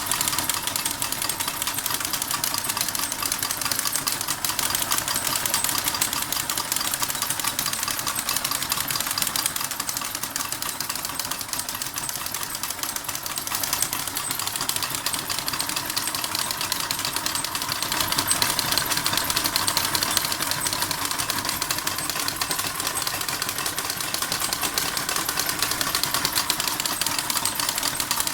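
Model steam engine running, with a fast, steady clattering and rattling of its working parts. The clatter eases slightly about ten seconds in and picks up again a few seconds later.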